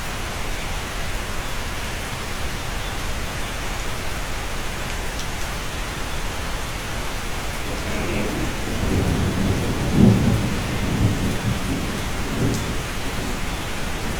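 Steady rain heard inside a cabin, with a roll of thunder that builds about eight seconds in, is loudest around ten seconds and rumbles away over the next couple of seconds.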